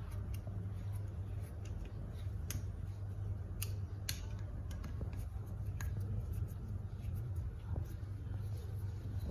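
Scattered sharp metallic clicks from an all-steel machine vise being handled and adjusted, the loudest about four seconds in, over a steady low hum.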